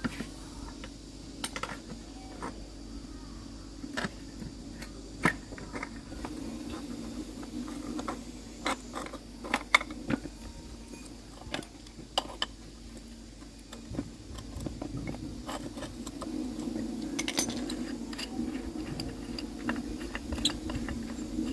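Metal tools and parts clinking and tapping as they are handled, in irregular sharp clicks, with a low steady hum that grows louder in the second half.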